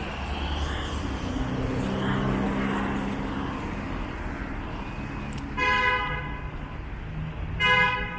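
Road traffic with a vehicle engine running close by, then a vehicle horn honking twice: two short toots about two seconds apart, the second near the end, louder than everything else.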